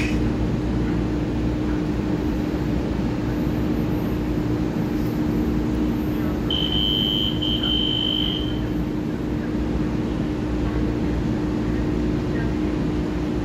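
Stationary EMU3000 electric multiple unit train humming at the platform with its doors open: a steady low drone with a constant hum tone. About halfway through, a high electronic beep sounds for about two seconds.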